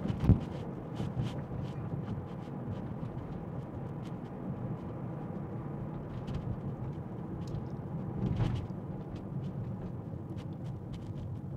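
Steady road and tyre noise heard from inside a Tesla's cabin while it drives, with faint scattered ticks, a short thump just after the start and a brief swell about eight seconds in.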